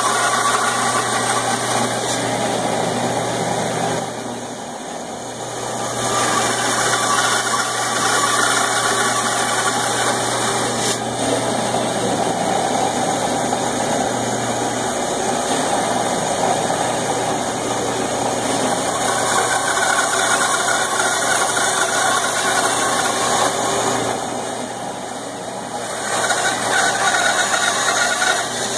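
Band saw running and cutting through a wooden plank, a steady hum under the noise of the blade in the wood. The noise drops quieter twice, for about two seconds each time.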